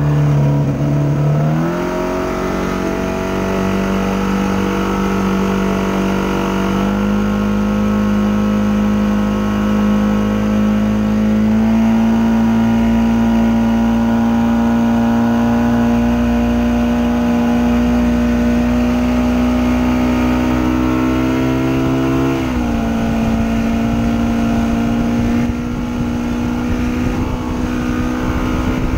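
Rebuilt Mercury 115 outboard motor running hard at planing speed. Its revs rise about two seconds in and again around seven seconds, then ease back a little after twenty-two seconds and hold steady, over the rush of wake and wind.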